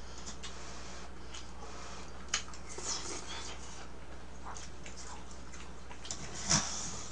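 Eating sounds: scattered small clicks and scrapes of a spoon in a plastic food tub, with a louder knock a little before the end, over a low steady hum.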